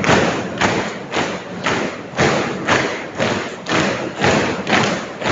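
A formation of troops stamping their boots in unison, about two even stamps a second, each echoing in a large hall.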